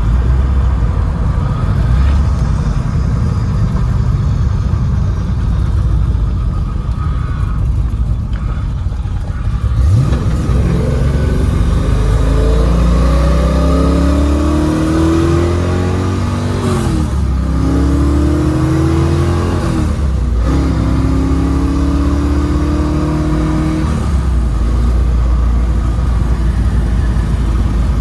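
1994 Corvette's rebuilt LT1 V8 and ZF manual gearbox heard from inside the cabin on a drive. The engine runs steadily, then accelerates with its pitch climbing, drops back at two upshifts, and settles into a steady cruise near the end.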